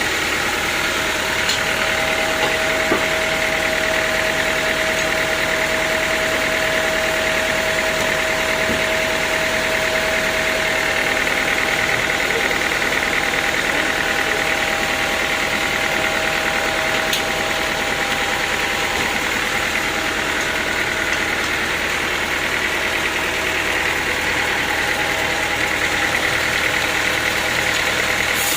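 Sawmill machinery running steadily: a continuous mechanical drone with a steady whine, with no breaks or pauses.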